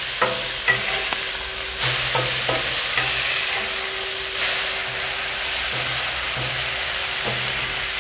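Thick-cut bacon sizzling steadily on a flat-top griddle, with a few sharp ticks and scrapes of a metal spatula against the steel as the strips are flipped. The sizzle flares up twice as slices are turned onto the hot surface.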